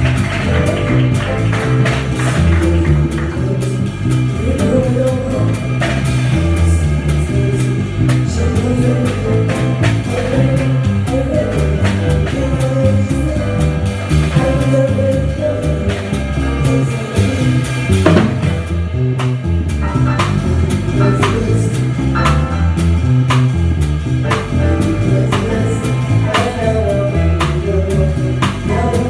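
Live band music led by a plucked upright double bass, heard close and loud, playing a repeated funk bass line. A drum kit and a singer's voice sit over it.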